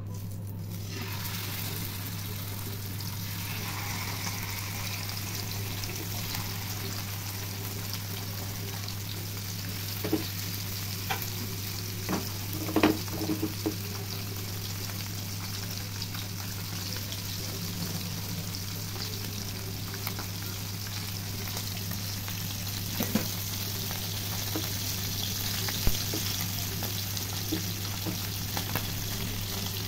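Marinated parai (trevally) fish shallow-frying in hot oil in a pan: a steady sizzle that builds about a second in, over a steady low hum. A few short sharp clicks come around the middle.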